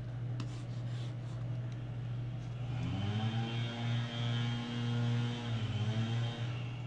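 Steady low electrical mains hum in the recording. About three seconds in, a person's voice joins it with a held, closed-mouth 'mmm' hum on one note that rises at the start. It lasts about three and a half seconds, with a brief dip near the end.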